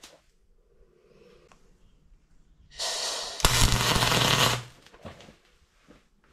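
Wire-feed welding arc crackling in one burst of nearly two seconds, starting about three seconds in, with a steady hum under it, as steel pipe is welded to the rudder post. Another short burst of welding starts at the very end.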